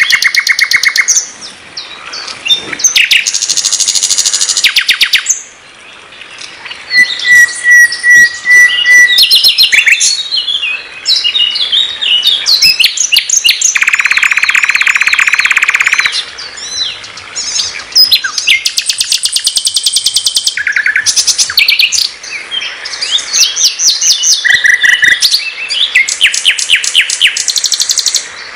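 Nightingale (sikatan londo) singing a varied, in-form song of fast repeated-note trills and rattles. About seven seconds in comes a short run of clear, even whistles, and in the middle a long, dense rattling trill lasting about two seconds.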